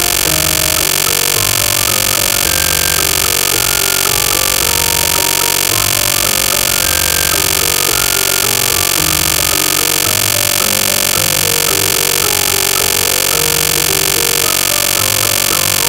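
End-screen background music with changing notes in the bass, buried under a loud, even hiss that covers everything; the hiss cuts in and out abruptly.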